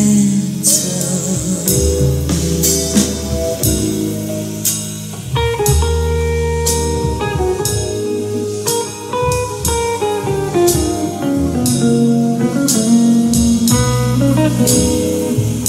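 Recorded music with plucked guitar, bass and drums, played through Tannoy Eclipse bookshelf speakers driven by an Onkyo Integra A-9711 integrated amplifier.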